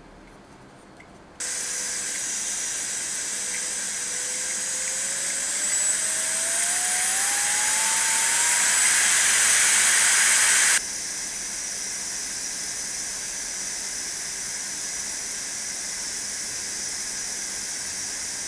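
Jisulife Ultra 1 handheld fan switching on about a second in with a loud rush of air and a motor whine. The whine rises steadily in pitch as the speed is turned up, then the fan drops abruptly to a lower, steady speed and runs on.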